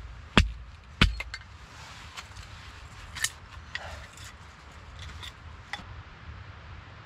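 Hatchet chopping kindling on a wooden stake: two sharp chops in the first second, then lighter knocks and clicks as the split sticks are handled.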